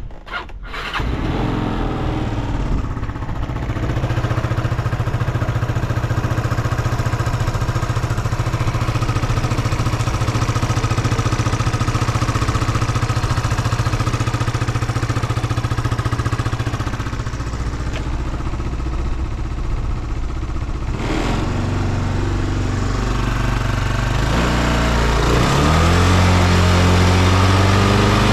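Yamaha Cygnus X SR 125 scooter's single-cylinder four-stroke engine catching about a second in and idling steadily, then blipped several times near the end, its pitch rising and falling with each twist of the throttle. It runs without abnormal noise, as the seller states.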